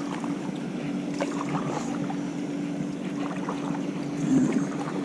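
Canoe on the move: water noise and light paddle knocks and drips against the hull, with wind on the microphone and a steady low hum underneath.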